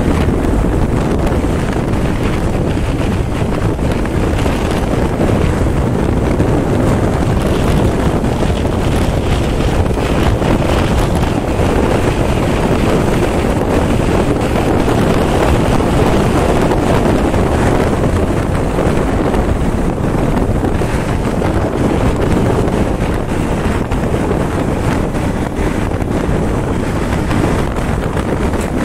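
Steady, loud wind noise buffeting the microphone of a motorcycle riding at highway speed, with the bike's running sound mixed into the rush.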